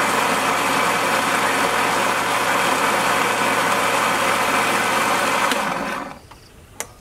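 Electric countertop blender running steadily at speed, blending a green liquid, then switched off about six seconds in and winding down. A single sharp click follows near the end.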